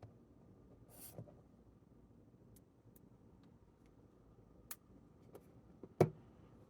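Light taps, clicks and handling knocks on an iPhone: a brief swish about a second in, a few scattered clicks, and one firmer knock near the end.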